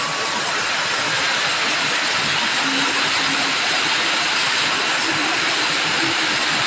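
Heavy rain pouring steadily: a dense, even hiss of rainfall.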